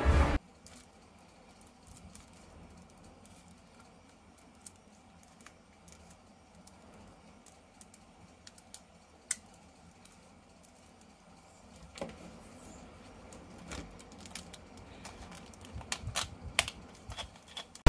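Scattered light clicks and taps from handling small plastic toys and packaging, sparse at first and coming thicker and louder in the last several seconds.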